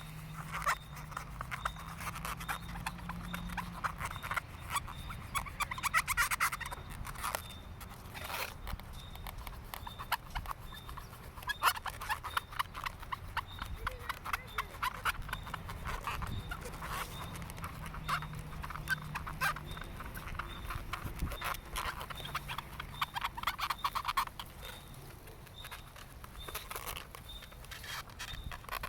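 Black Sharpie marker squeaking and scratching over a latex balloon in quick short strokes as the balloon is coloured in and turned in the hand, with rubbery squeaks from the balloon itself.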